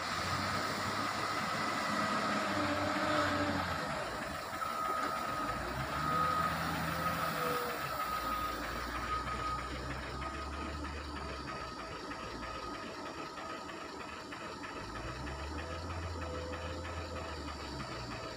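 Wheel loader's diesel engine working hard in repeated swells as it drives up and lifts a full bucket of stone chips to load a lorry, with short high alarm beeps in the middle.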